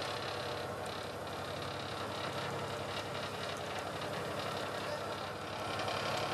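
Boat engine running steadily, heard from on board as the boat cruises.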